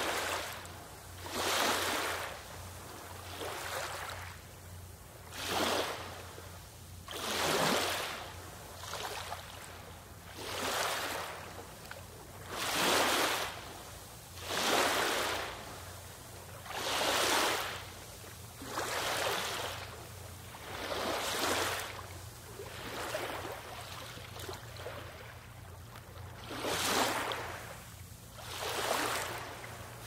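Small waves washing in one after another, about every two seconds, each a rising and falling rush of water, over a low steady hum.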